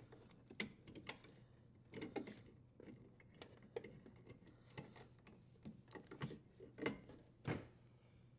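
Faint, irregular light clicks and taps of small parts being handled during dishwasher disassembly, over a low steady hum.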